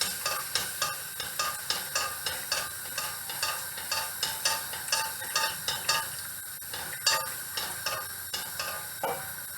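A spoon stirring granulated sugar into hot vinegar in a pan to dissolve it, scraping the pan in even strokes about three times a second. The strokes thin out near the end.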